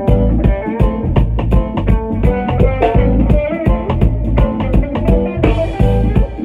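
A live band playing an instrumental groove: plucked guitar notes over bass guitar and drum kit, with a steady beat about four times a second.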